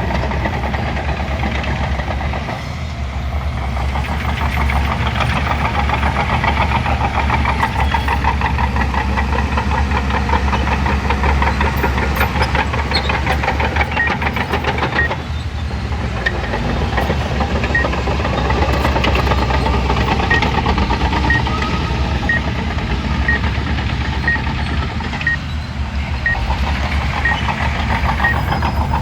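Shantui crawler bulldozer's diesel engine running steadily with a rhythmic clatter, easing off briefly a few times. From about halfway, a faint short beep sounds about once a second.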